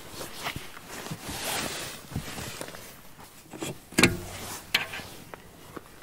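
Rustling and handling noises as the rear door of a truck bed camper shell is opened from outside, with a sharp knock of the door or its latch about four seconds in and a smaller click shortly after.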